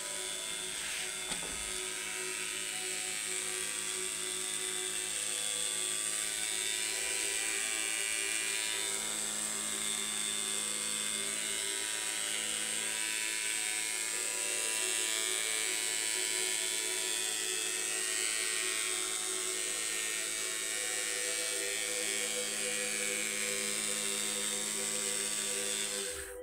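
Small rotor spinning on top of a pancake coil, a steady mechanical whir made of several humming tones over a high hiss. It cuts off suddenly near the end.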